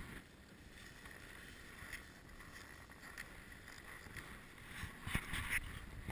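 Faint, muffled wind and movement noise on the camera, with a short run of crunching scuffs about five seconds in as snowboard boots walk over packed snow.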